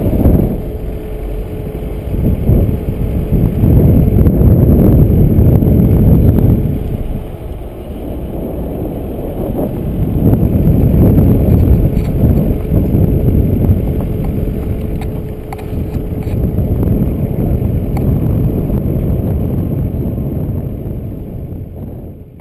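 Car driving slowly along a road, heard from a camera mounted on its body: a muffled low rumble of engine and tyres with wind buffeting the microphone, rising and falling in strength. It fades out near the end.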